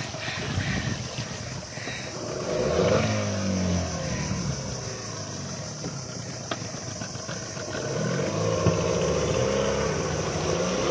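A small speedboat's engine running and revving up, its pitch gliding up and down a few seconds in and again near the end as the boat gets under way.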